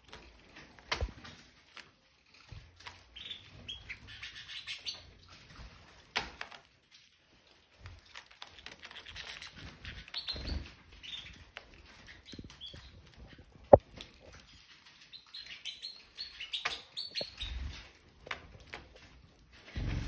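Red factor canaries chirping in short bursts, with scattered sharp clicks and a few soft thumps as they move about the seed dish; the loudest is a single sharp click about two-thirds of the way through.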